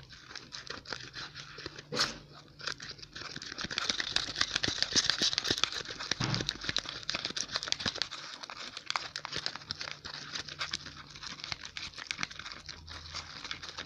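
Sticky slime of glue, shaving foam and borax activator being stirred and worked in a bowl: a dense run of small wet crackles and clicks, busiest around the middle, as the mix sets and starts to come away from the bowl.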